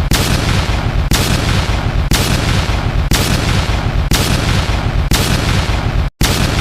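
Countdown timer sound effect: a loud, noisy boom-like hit once a second, each starting sharply and its hiss fading before the next. There is a brief gap of silence just before the last one.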